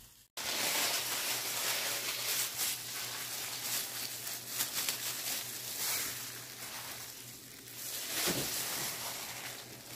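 Gloved hands squishing and mixing raw ground pork filling with shredded cabbage and carrot in a glass bowl: plastic gloves rustling and the wet mixture squelching, over a steady low hum.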